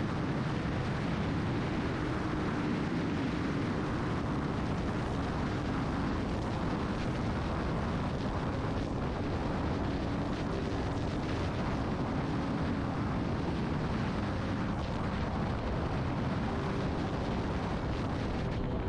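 Wind roaring on the microphone at highway speed, with the 2020 Yamaha R6's inline-four engine and Akrapovic full exhaust running at a steady cruise underneath.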